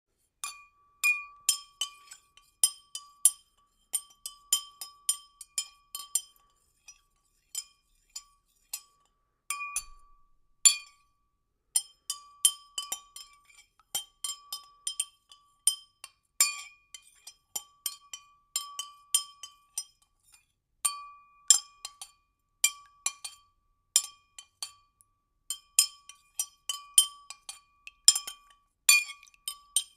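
Irregular clinks against glass, coming singly or in quick runs of two to four. Each clink leaves a short ring at the same pitch.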